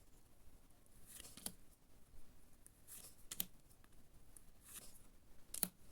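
Yu-Gi-Oh trading cards being handled and slid one over another: four faint, short swishes with soft taps, spread out.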